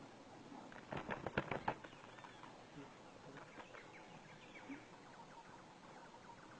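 Faint high bird chirps, with a quick run of sharp taps or clicks about a second in.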